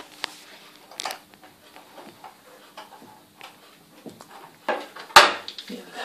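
Scattered clicks and light knocks of a wooden cupboard door and its metal hinges being handled and fitted back in place, with one sharp, loud knock about five seconds in.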